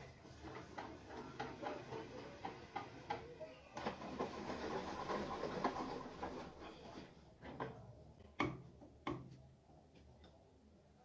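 Hand-worked lathe carriage and tool post clicking about three times a second as they are moved along the bed, then a couple of seconds of rough metal scraping. Two sharp metal knocks follow.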